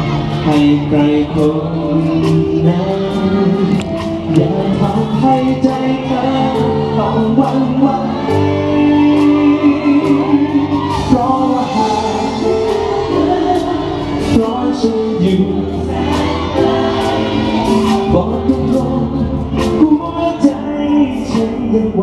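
Live band playing a song through PA speakers: drums, electric guitar and vocals sung into microphones, with a steady beat.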